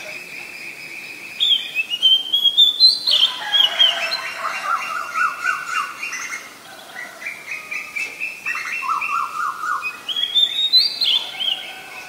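Oriental magpie-robin (Copsychus saularis) singing a varied song of whistled notes, rising slurs and quick repeated trills, in two loud runs with a short dip about six seconds in.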